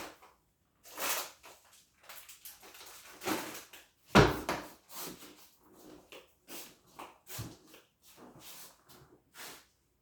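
Kitchen clatter: a string of separate knocks and bumps from things being handled and set down, the loudest about four seconds in.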